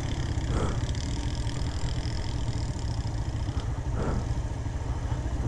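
Motorcycle engine running under way as the bike rides over a rough, rocky track: a steady low rumble with brief swells about half a second in and again near four seconds.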